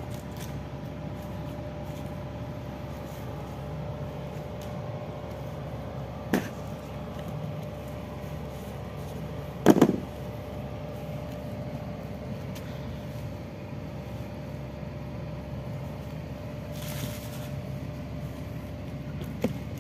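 Steady low mechanical hum with a faint steady tone in it, broken by two sudden knocks, about six and about ten seconds in, the second the louder.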